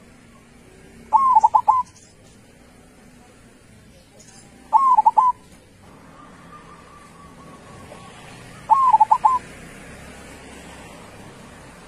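Zebra dove (perkutut) cooing: three short phrases a few seconds apart, each a quick run of three or four notes lasting about half a second.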